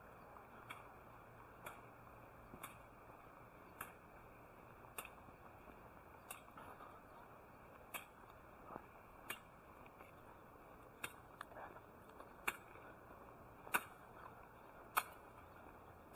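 Footsteps of a person walking: sharp clicks at a steady walking beat, about one every second, growing louder near the end, over faint steady background hiss.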